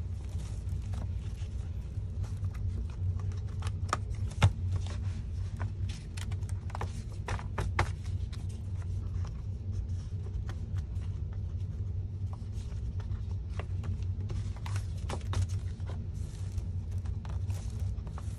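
Loose-leaf notebook pages being fitted onto metal binder rings: scattered light clicks and paper handling over a steady low hum, with one sharper click about four and a half seconds in.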